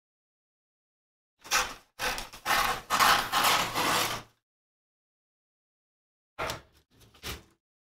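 Scissors cutting strips from a brown paper bag, the stiff paper rustling and crackling with each stretch of cuts: a short burst about a second and a half in, a longer run of cutting for about two seconds, then a few brief snips near the end.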